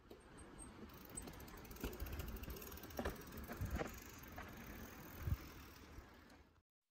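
Faint sound of a mountain bike riding over a dirt singletrack: tyre noise on dirt with a few sharp clunks and rattles as it goes over roots and bumps, the loudest knock about five seconds in. It fades out just before the end.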